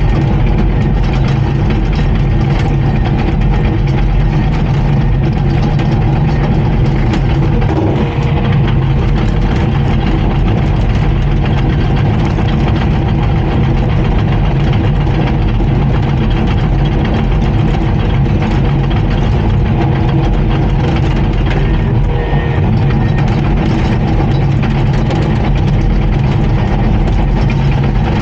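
Komatsu D39PX bulldozer's diesel engine running steadily and loudly at an even speed.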